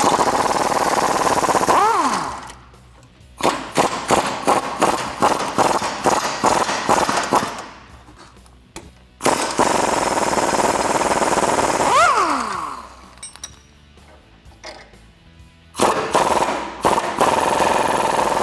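Pneumatic impact wrench working bolts on a Jeep's rear suspension. It runs once and winds down with a falling whine about two seconds in. Then comes several seconds of short, stuttering hammering bursts, then two more long runs that each end in a falling whine as the trigger is released.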